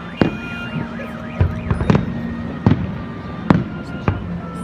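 Aerial fireworks shells bursting, several sharp booms at uneven intervals, over a show soundtrack of held tones with a warbling high tone in the first second.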